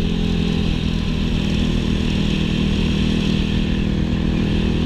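250cc four-stroke single-cylinder dirt bike engine running at a steady, unchanging engine speed.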